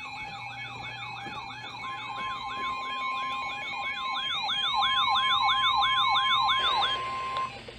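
Electronic emergency-alert warning tones from several receivers at once, sounding the alarm ahead of a new warning message. A siren-like tone sweeps rapidly downward about three times a second, a higher sweeping tone runs alongside it, and a steady single tone joins about two seconds in. All of them stop shortly before the end.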